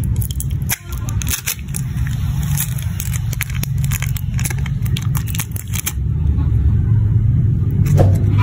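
Aluminium foil lid being peeled off a plastic snack cup, crinkling in many short crackles, over a steady low rumble.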